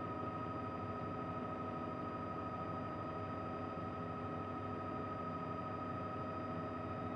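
Steady helicopter cabin noise: a constant drone with a high-pitched whine held on one pitch.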